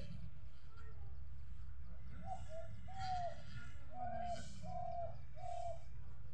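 A bird calling a series of about six short, even, steady-pitched notes, starting a couple of seconds in, over a steady low rumble.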